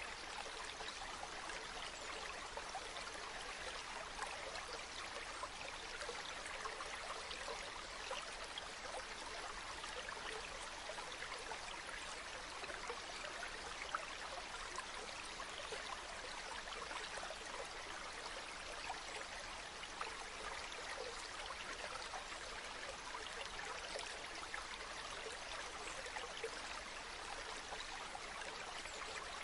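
Steady flowing water, a stream trickling and splashing with many small droplet ticks over an even rush.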